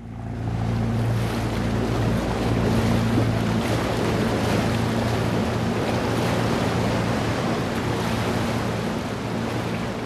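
Steady rushing of sea surf and wind with a low steady hum underneath, fading in at the start and out near the end.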